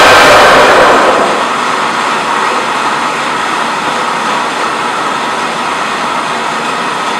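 Conventional milling machine's spindle turning a friction stir processing tool pressed onto an aluminium 5083 plate during the plunge, a steady mechanical noise. It drops in level about a second in and then holds even.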